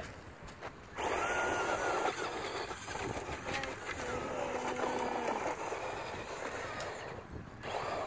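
Traxxas Slash 2WD RC truck driving over dirt, its motor giving a faint whine that drifts up and down in pitch over a steady rushing noise. The sound drops away briefly near the start and again near the end.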